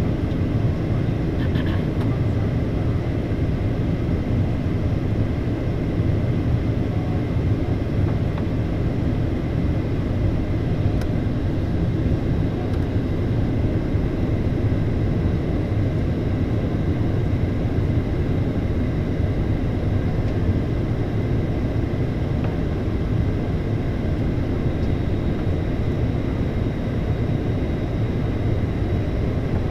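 Steady cabin noise of a Boeing 737-800 on approach, heard from a window seat beside the wing: a constant low rumble of engine and airflow with a thin steady whine from its CFM56-7B turbofans.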